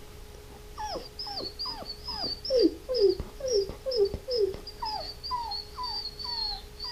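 A man imitating a dog whimpering by mixing two sounds: a thin, wavering whistle held throughout, under a run of short, high vocal whines that each fall in pitch, about two a second.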